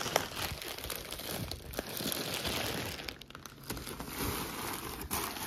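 Plastic bubble wrap crinkling and rustling against a cardboard box as packed parts are handled, with many small crackles.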